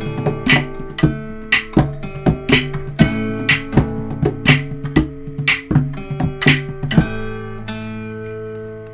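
Acoustic guitar intro music: a steady run of plucked notes, then a final chord about seven seconds in that rings on and slowly fades.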